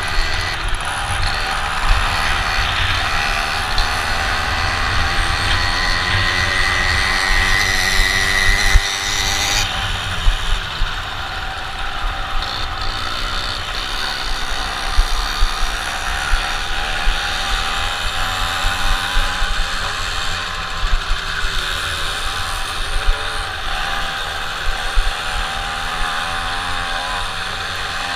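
A small race minibike (punnvõrr) engine, heard from on board, revving up and down as the bike races through the turns. Wind buffets the microphone throughout.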